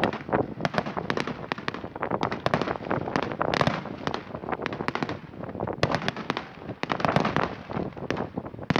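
Fireworks display: aerial shells bursting in a dense, irregular volley of bangs, several a second, with crackling between them.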